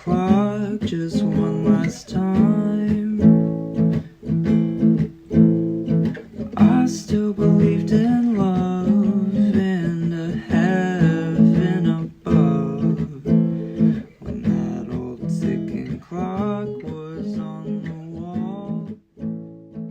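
Acoustic guitar strummed and picked: an instrumental passage of a song that thins out and drops away near the end.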